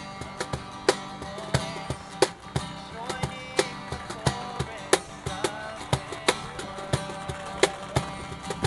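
Acoustic guitar strummed over a Meinl cajón played by hand, the cajón's sharp slaps keeping a steady beat with lighter strokes between.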